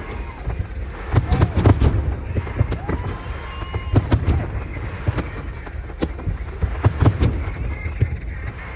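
Aerial fireworks shells bursting in quick succession: sharp cracks and low booms, several in a cluster at a time, over a continuous rumble.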